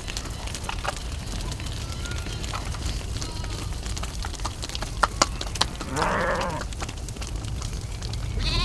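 A flock of sheep moving and grazing, with one loud bleat about six seconds in and another starting near the end. A few sharp clicks come just before the first bleat.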